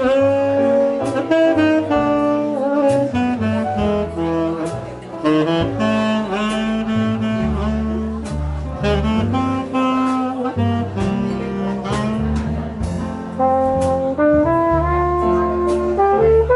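Live jazz quintet: a tenor saxophone plays a slow ballad melody over piano, double bass and drums. Near the end a trumpet comes in on a long held note as the saxophone phrase ends.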